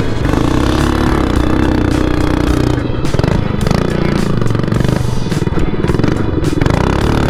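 Predator 212cc single-cylinder four-stroke engine of a Baja mini bike running under throttle as the bike spins donuts in snow, its note holding steady for the first few seconds and then wavering.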